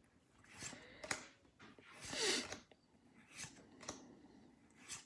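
Pokémon trading cards being flipped through in the hands, with soft sliding swishes and light flicks as each card is moved from the back of the stack to the front; the loudest swish comes about two seconds in.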